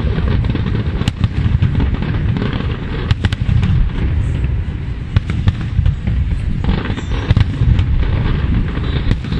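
Aerial firework shells bursting in quick succession: many sharp bangs over a continuous low rumble.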